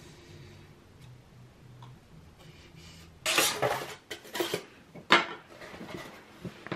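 A pink extruded polystyrene foam board being handled. After a quiet start it is lifted and turned over on a cutting mat with a run of scraping and rubbing sounds, and a sharp knock a little after five seconds as it is set down.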